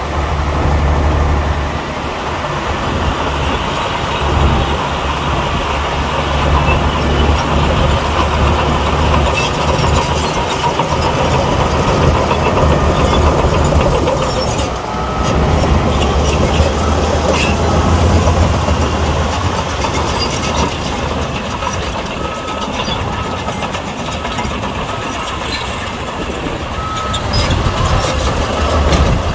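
Crawler bulldozer's diesel engine running under load, a steady low drone that swells and eases, with scattered clanks and knocks.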